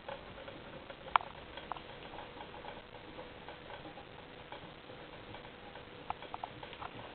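Hamsters crunching insects: sharp, irregular clicks of chewing. A loud one comes about a second in, and a quick cluster comes near the end, over a faint steady hum.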